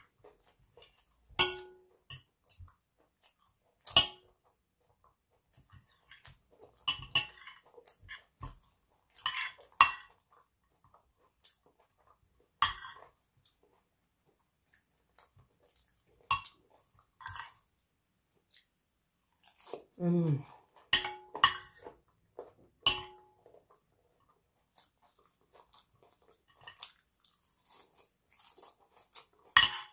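Metal fork, knife and spoon clicking and scraping against a ceramic plate, some strikes leaving a short ring, with chewing sounds between the strikes.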